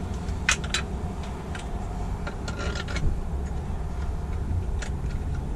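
Sharp clicks and light knocks of metal and plastic laptop-mount parts being handled and fitted together: two quick clicks about half a second in, a rattling cluster around the middle, and one more near the end, over a steady low rumble.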